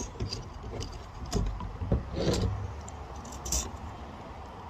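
Handling noise from a rifle: scattered light metallic clicks and knocks with a little rattling, and a couple of duller bumps.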